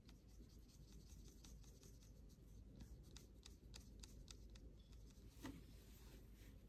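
Faint brushwork: a watercolour brush dabbing and stroking on paper, heard as many light scratchy ticks, with one slightly louder soft bump about five and a half seconds in.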